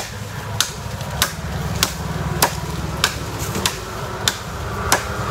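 Khukuri chopping at the base of a bamboo stem: sharp, evenly spaced strokes, about nine in a row, a little over half a second apart.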